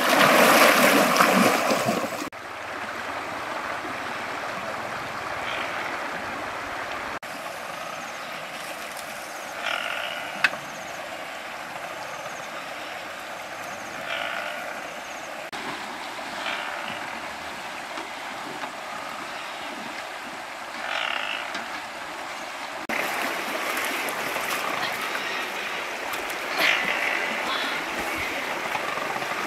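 Water splashing loudly as someone wades through a shallow river for about the first two seconds, then the steady rush of flowing river water, changing in character at each cut, with short faint chirps now and then.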